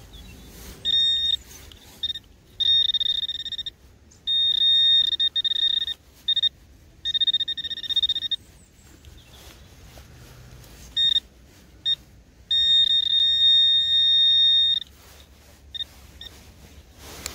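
Metal detector giving a high-pitched target tone in repeated on-off bursts, some short and some lasting one to two seconds, signalling buried metal under the coil.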